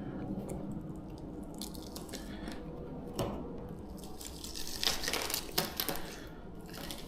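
Stock trunk spoiler being worked loose from its 3M adhesive tape by hand: scattered small crackles and scrapes, with sharper clicks about three seconds in and a cluster around five seconds in.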